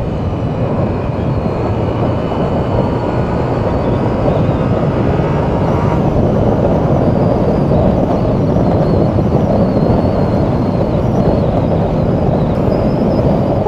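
Steady, loud wind rush on a motorcyclist's microphone at expressway speed, with the Yamaha R7's engine and road noise mixed in beneath.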